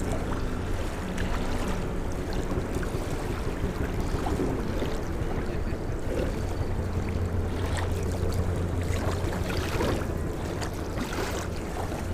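Steady rush of river water and wind on the microphone, under a constant low hum.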